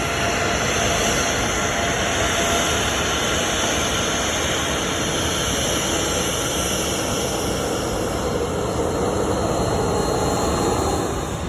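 Jet airliner engines: a loud, steady rushing noise with a high whine mixed in.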